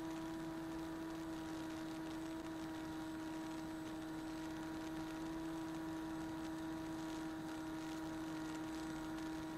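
Steady electrical hum with no change in pitch or level: background noise of the recording setup rather than anything happening in flight.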